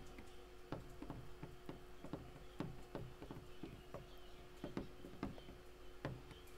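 Faint, irregular clicks and taps of a stylus writing on a tablet, over a steady faint hum.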